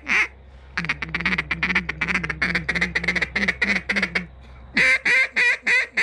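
Dux Delrin double-reed duck call blown by mouth: a fast run of short quacks lasting about three seconds, then, after a brief pause, a string of louder, longer quacks.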